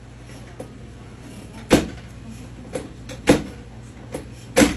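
A series of sharp wooden-sounding knocks and clunks, four strong ones roughly a second apart with fainter taps between, the last the loudest, as a chiropractic adjustment table and patient are worked on.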